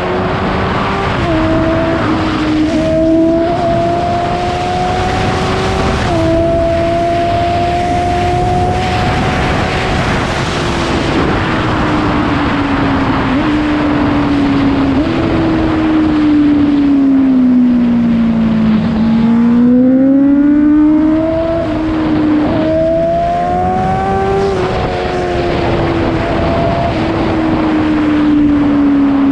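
Honda CBR650F inline-four engine through an Akrapovic full-system exhaust with the dB killer removed, ridden through the gears: the engine note climbs in steps with a short dip at each upshift, falls away as the bike slows about two-thirds of the way through, then climbs through the gears again.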